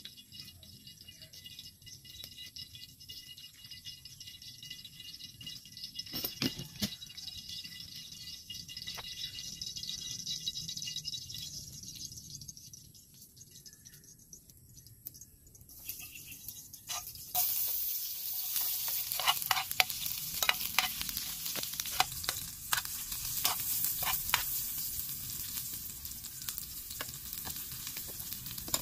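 Food frying in a metal pan over a wood fire: a steady sizzle with a spoon clicking and scraping against the pan. A quieter stretch comes first, and the sizzling jumps up loud a little past halfway.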